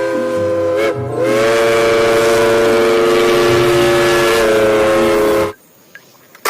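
Train whistle sound with several tones held together like a chord. It breaks off briefly about a second in, sounds again, and holds steady until it cuts off suddenly near the end.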